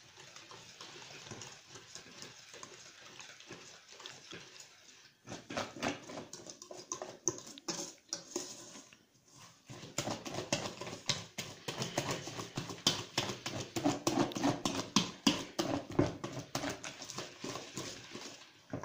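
Wire whisk beating thick crêpe batter in a stainless steel bowl: soft stirring at first, then, from about five seconds in, fast rhythmic clicking of the wires against the metal bowl.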